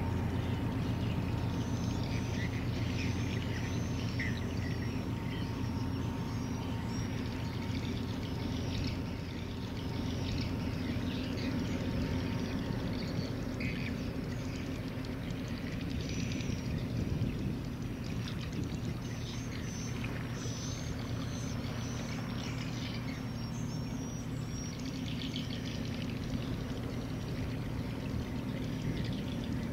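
A passing container ship's steady low drone, with the churned water of its wake rushing and splashing. Short high chirps come and go over it.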